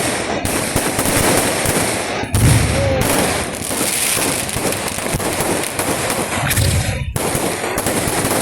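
Kerala festival fireworks barrage (vedikettu): a dense, continuous crackle of rapid firecracker reports, with heavier booms about two and a half seconds in and again near six and a half seconds.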